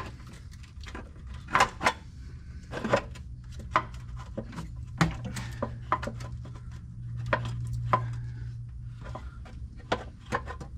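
Light metallic clinks and knocks of engine parts and hand tools being handled and set in place while the top end of the engine is reassembled, about a dozen separate taps at irregular intervals, over a steady low hum.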